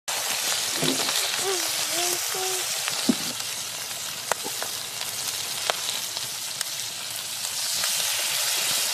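Trout fillets frying in butter in a skillet: a steady sizzling hiss, with a few sharp pops.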